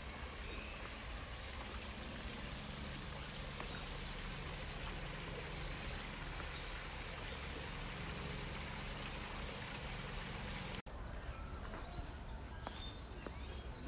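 Outdoor ambience of a wooded park: a steady rushing hiss with a low hum beneath it. About eleven seconds in it cuts off abruptly, and a few bird chirps follow over thinner background noise.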